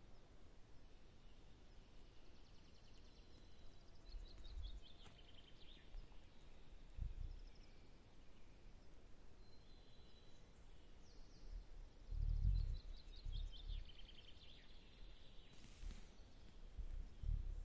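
A songbird singing a short phrase of quick notes that step down in pitch, twice, about ten seconds apart, with a few fainter chirps between. Low rumbles come and go underneath, the loudest about twelve seconds in.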